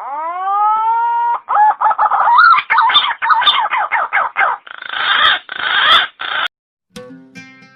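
Pink-necked green pigeon calling: one rising whistled note, then a long run of quick warbling, gurgling notes that stops abruptly about six and a half seconds in. Soft plucked guitar music starts near the end.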